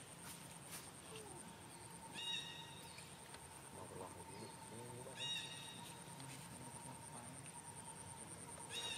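A short, high call with a brief falling start sounds three times, about three seconds apart, over a steady high insect trill.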